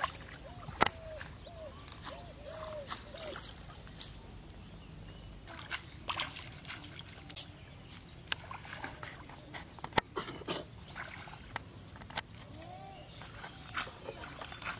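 Outdoor ambience: an animal's short, arching calls repeated several times in the first few seconds and again near the end, a few sharp clicks, and light water sloshing.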